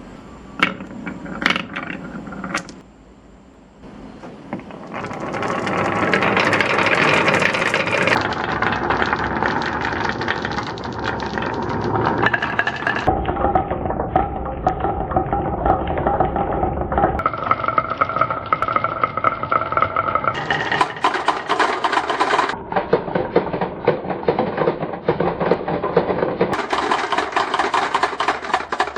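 Marbles clicking on a wooden HABA marble run: a few separate clacks at first, then a dense continuous rattle of many marbles rolling down the wooden slopes. The rattle changes character abruptly several times.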